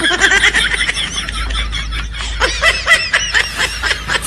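High-pitched laughter, a rapid run of short rising-and-falling pitched bursts.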